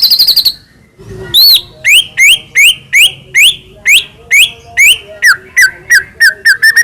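White-rumped shama (murai batu) singing. A rapid high trill cuts off about half a second in. About a second later comes a series of loud rising whistled notes, about two a second, which turn into quicker falling notes near the end.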